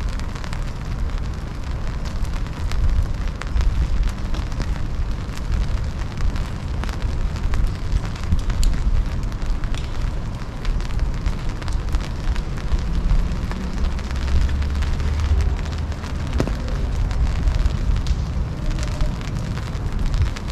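Wind buffeting the microphone as a steady low rumble, with rain pattering and dripping on surfaces.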